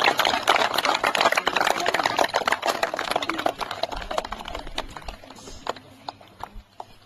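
Crowd clapping, dense at first, then dying away to a few scattered claps near the end.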